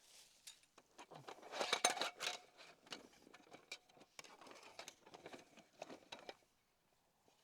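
Close handling sounds: a busy run of small clicks, taps and rustles, loudest about two seconds in and dying away near the end.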